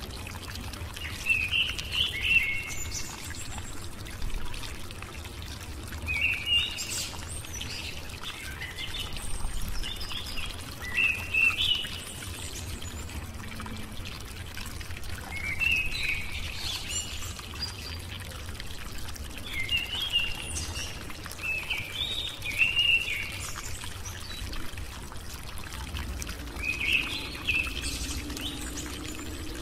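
Birds chirping in short phrases every few seconds over a steady rush of running water, like a nature-sound backing track.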